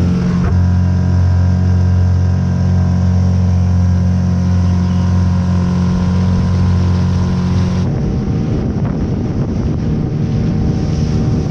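Boat motor running at a steady speed. Near the end the sound changes abruptly to a rough rumble of wind on the microphone with the motor and water noise underneath.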